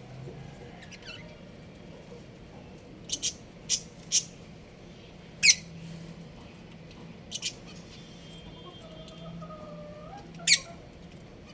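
Budgerigars giving short, sharp chirps, some single and some in quick pairs, with the loudest about halfway through and near the end, over a faint steady hum.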